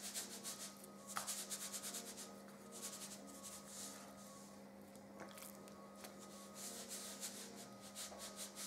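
Salt shaker being shaken over raw chicken breast: quick, faint, scratchy rattles of salt grains in several bursts of shakes, over a steady low hum.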